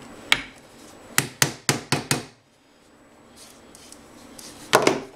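Thin sheet metal being worked in a wooden forming block, giving sharp metallic taps: a single tap, then five quick ones about four a second, and a louder cluster near the end.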